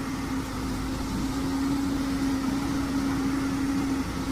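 Machinery running steadily: a constant droning hum over a low rumble, with no change in speed.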